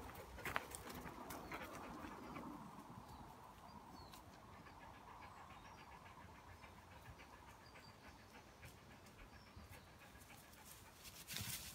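A dog panting faintly, with a brief louder noise near the end.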